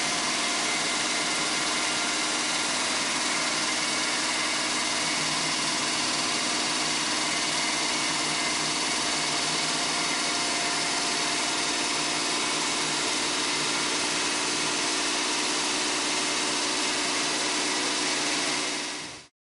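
Water-fed bridge saw cutting a stone slab with its large diamond blade under a water spray: a steady mechanical noise with several steady tones held throughout. It stops abruptly near the end.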